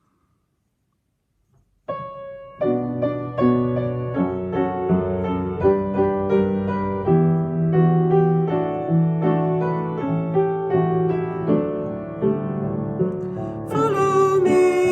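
Near silence for about two seconds, then a piano introduction to a children's hymn begins, playing chords under a melody. Near the end the music grows fuller and brighter as more sound joins in.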